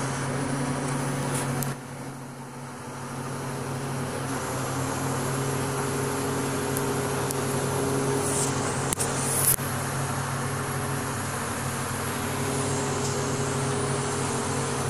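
Crane engine running steadily, a low even hum heard inside the operator's cab, dipping briefly about two seconds in and building back. A couple of sharp clicks about nine seconds in.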